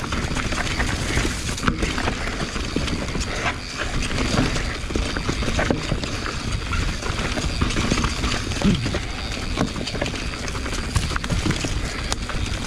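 Mountain bike riding over rough dirt singletrack: tyres rolling on dirt and rocks, with the bike rattling and knocking over bumps and a steady wind rumble on the handlebar camera's microphone.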